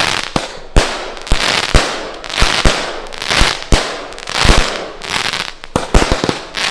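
Firework cake firing shot after shot: sharp bangs about two to three a second, each trailed by a hissing crackle from the bursts.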